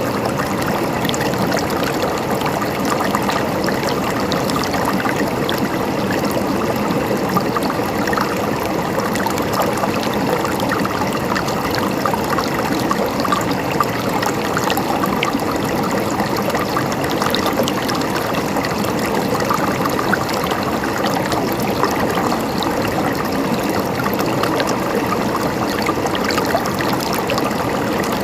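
River water flowing and babbling over rocks, a steady rushing with fine splashing and trickling.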